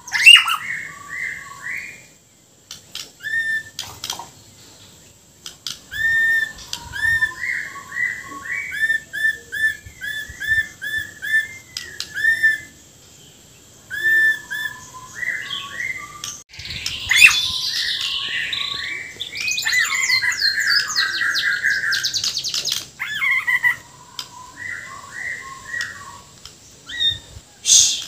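Caged Bornean white-rumped shama (murai borneo) singing in full song: quick runs of short, clear whistled notes broken by brief pauses. About two-thirds of the way through come harsher, rough notes ("kasaran") and fast trills.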